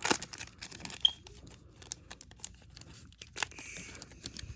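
A foil trading-card pack (2021 Bowman Baseball) being torn open and its wrapper crinkled: irregular rustling with sharp crackles, the loudest near the start, about a second in and about three and a half seconds in.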